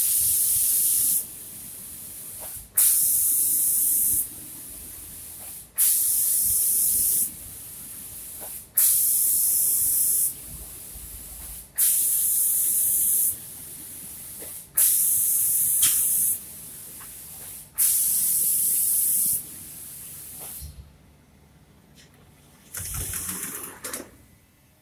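Automatic spray-painting machine's spray gun hissing in seven bursts of about a second and a half each, switching on and off roughly every three seconds as it makes passes laying down a finish coat. The spraying stops about twenty seconds in, followed by a short softer rush of noise.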